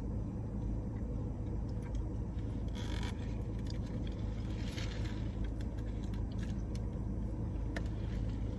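Steady low background rumble, with a few faint brief rustles about three and five seconds in.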